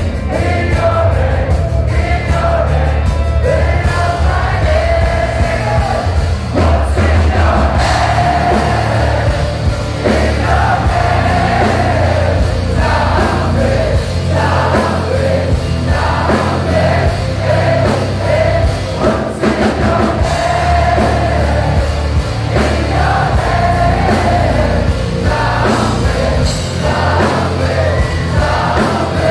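Heavy rock band playing live through a club PA: a sung vocal line over loud, heavy bass and full band accompaniment.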